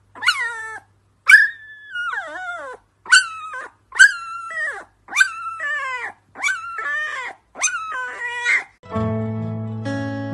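Husky puppy howling in a string of short, high cries, each falling in pitch, about one a second. Acoustic guitar music comes in near the end.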